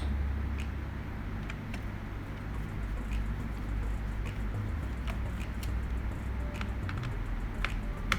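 Small scattered clicks and ticks of a screwdriver working out the screws that hold a laptop's hard disk, over a low steady hum.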